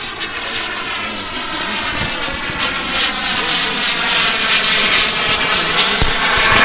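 RC model turbine jet engine running in flight, its whine and rush growing louder as the jet comes closer. A short knock comes near the end.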